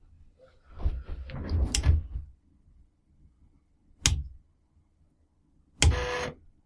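Mechanical handling of a floppy drive: a rapid cluster of small rattles and clicks as the stepper-driven head mechanism is moved by hand. Then comes a single sharp click, and near the end a short buzzy clunk.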